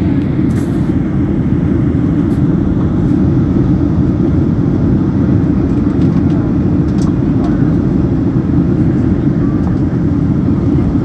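Airliner cabin noise in flight: the steady, low, even rush of the engines and airflow heard from inside the cabin.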